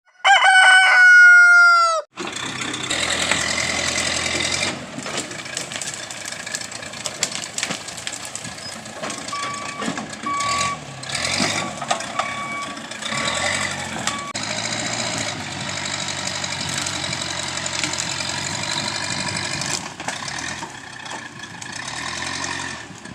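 A loud tone that slides slightly down opens the sound, lasting about two seconds. Then a tractor engine runs steadily in the pasture, with a few short high beeps around the middle.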